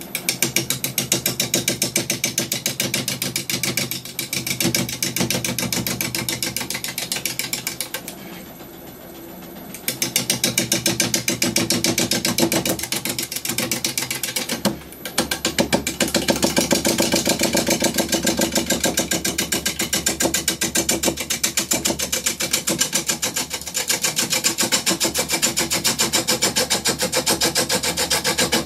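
A bowl gouge cutting into an uneven, spinning honey locust blank on a wood lathe at about 470 rpm. The cut is a fast, even run of knocks, an interrupted cut on the out-of-round wood. It pauses for a second or two about eight seconds in and again briefly around fifteen seconds, as the tool comes off the wood.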